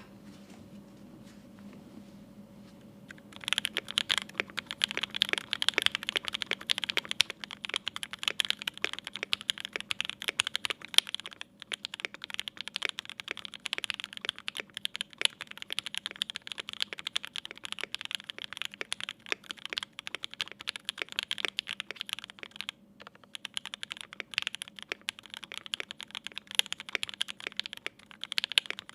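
Typing on a Mode Eighty mechanical keyboard with lubed 43 Studio Toy switches on an FR4 plate and GMK keycaps: a quick, continuous stream of keystroke clacks. It starts about three and a half seconds in and breaks off briefly twice.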